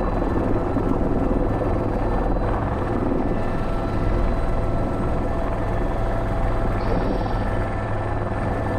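Airbus H125 helicopter in flight, its main rotor and single turboshaft engine running steadily: a constant low rotor beat with a steady turbine whine above it.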